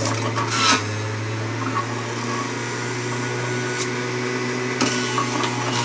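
Electric centrifugal juicer running with a steady hum as fruit is pressed down its feed chute with the pusher, with a few short clicks.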